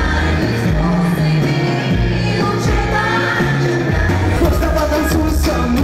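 Pop song with a singing voice over a steady bass line.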